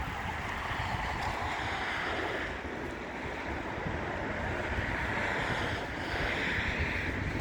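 Street ambience: steady traffic noise that swells twice as vehicles pass, with wind rumbling on the phone's microphone.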